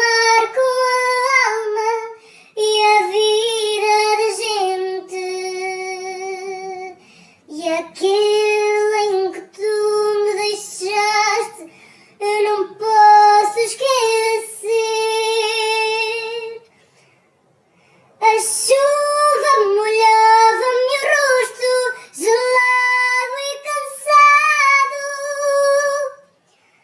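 A single high voice singing a fado unaccompanied, in long held phrases with vibrato, breaking off briefly about two-thirds of the way through before going on.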